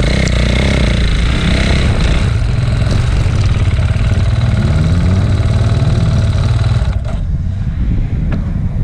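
Dirt bike engine running close up, revving up and down, then dropping away abruptly about seven seconds in to a lower, quieter run.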